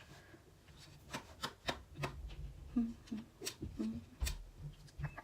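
Hands rummaging through a box of packaged beauty products: a run of sharp clicks, taps and rustles as items are moved about and picked up.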